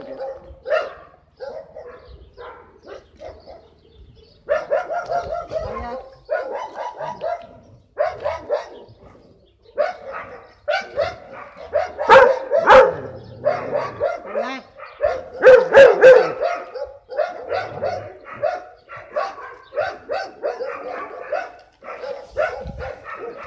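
Dog barking over and over in runs of quick barks, loudest around 12 and 16 seconds in.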